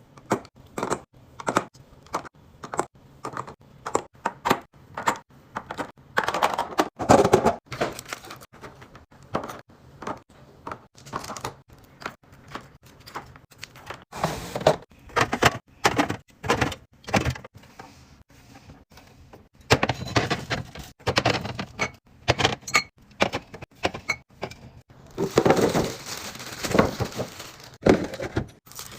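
Groceries being put away by hand: a long run of knocks, clinks and thunks as hard items are set down and stacked one after another. A stretch of crinkling packaging comes near the end.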